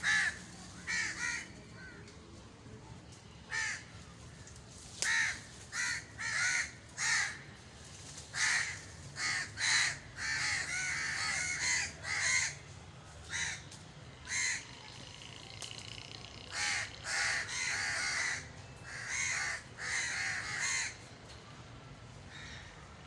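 Crows cawing over and over: dozens of short calls, often in quick runs, with a few longer drawn-out ones, stopping about two seconds before the end.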